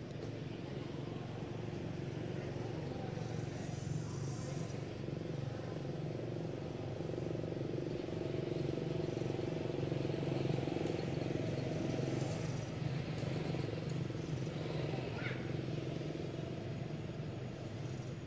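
A motor vehicle's engine running steadily with a low hum. It grows gradually louder to about the middle, then slowly fades.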